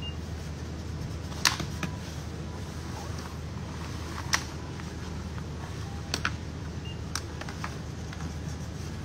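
Steady low hum of a shop interior with a few sharp clicks and knocks from objects handled on a hard counter. The loudest come about one and a half and four and a half seconds in, and a cluster of weaker ones follows around six to seven and a half seconds in.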